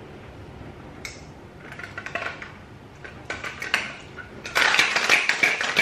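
Glass-and-metal cocktail shaker: a few clinks as the mixing glass is pressed into the metal tin, then, near the end, a loud second or so of fast rattling as the closed shaker is shaken.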